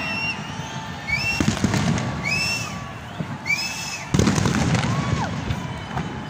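New Year fireworks going off: continuous rumbling bangs, with three short whistles rising and falling in pitch about a second apart, then a sudden burst of louder bangs about four seconds in.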